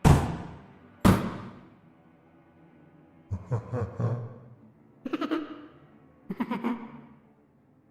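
Two heavy ghost-hit sound-effect impacts about a second apart, each booming and dying away, followed after a pause by three short eerie ghost laughs.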